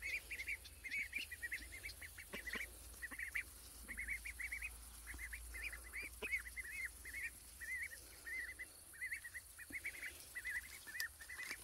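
Indian runner ducks giving a continuous run of short, high chirping calls in quick little clusters, several a second.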